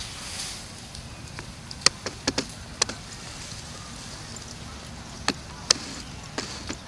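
About nine sharp clicks and snaps over a steady hiss. They come in a cluster about two seconds in and a few more near the end.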